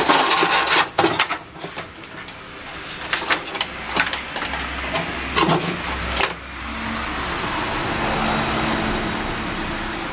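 Handling noise of a cable being worked through a hole in a VW Beetle's sheet-metal body: rustling with several sharp knocks and scrapes for about six seconds, then a steady rushing noise with a faint hum.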